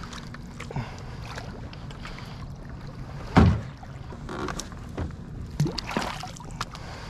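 Scattered knocks and clunks against a metal boat hull, the loudest a single heavy thump about three and a half seconds in, over a steady low rumble.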